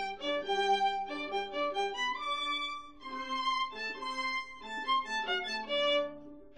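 Background music: a violin playing a melody of short, changing notes, dipping in level near the end.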